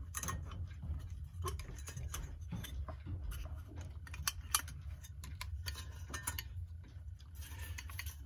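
Irregular small clicks and taps of a clock mechanism and its parts being handled and fitted back into the clock housing, over a steady low hum.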